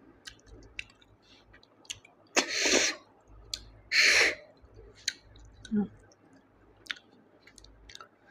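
A person sucking the meat out of cooked snail shells, two loud slurps about a second and a half apart, with small wet clicks of chewing between them.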